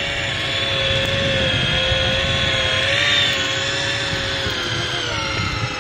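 Electric fishing reel's motor whining steadily as it winds in line, its pitch wavering slightly under load, then dropping and stopping right at the end. A rough low rumble runs underneath.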